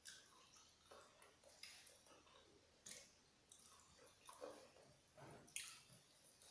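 Faint chewing of fried chicken: soft, irregular mouth clicks and small crunches, with one sharper click about five and a half seconds in.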